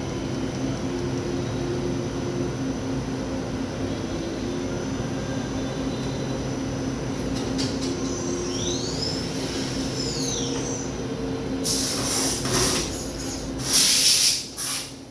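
Daewoo Puma CNC lathe running with a steady machine hum. About eight seconds in, a high whine rises and falls. From about twelve seconds, loud rushing bursts come in, strongest near the end.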